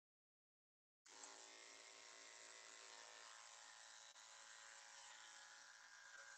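Electric dog-grooming clippers running with a steady buzz while trimming the fur on a poodle's foot. The sound cuts in abruptly about a second in.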